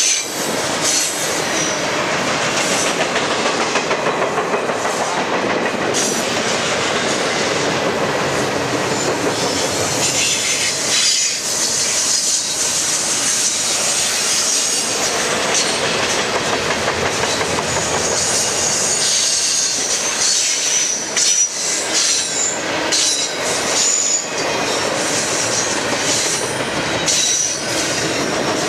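Double-stack intermodal freight train's well cars rolling past close by: a steady rumble and rattle of steel wheels on rail, with repeated clacks and an intermittent high wheel squeal.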